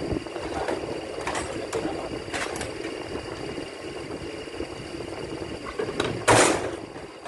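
Hand work on a bench-mounted automatic transmission being taken apart: scattered light metallic knocks and clunks over a steady shop hum, with one brief louder scrape or rush of noise a little after six seconds in.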